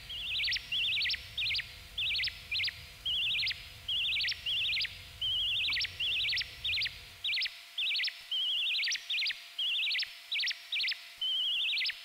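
Synthesized bird-like chirps from a Joranalogue Filter 8 pushed into self-oscillation, gated and frequency-modulated by an Orbit 3 chaos oscillator and run through a little reverb. Each chirp is a quick high trill that swells and then cuts off, coming at uneven intervals about one to two times a second.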